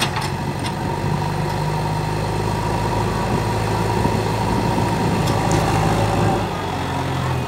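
JCB backhoe loader's diesel engine running with a steady note as the machine pushes soil with its front loader bucket.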